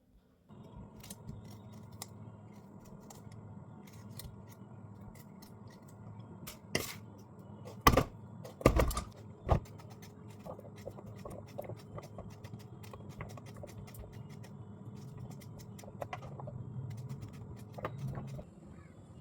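Small clicks and scrapes of a kitchen knife cutting up a bottle gourd, with a few louder knocks on the board near the middle, over a steady low hum.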